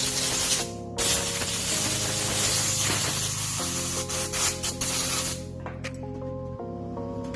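Compressed-air blow gun hissing as it blows dust out of an angle grinder's motor housing: a short blast that stops briefly about half a second in, then a longer blast that breaks into short spurts and cuts off about five seconds in. Background music runs underneath.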